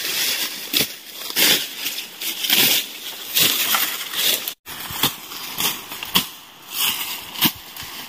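Grass and brush being slashed and cut by hand: irregular swishing, crunching strokes about one a second, with a brief dropout about halfway through.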